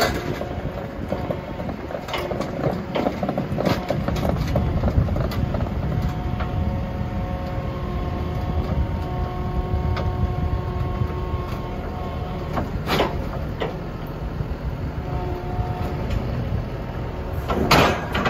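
Kubota SVL95 compact track loader's diesel engine running as the machine climbs onto an equipment trailer, with a whining tone in the middle. Sharp metal clanks sound as its tracks ride up the ramp and onto the trailer deck, loudest about 13 seconds in and near the end.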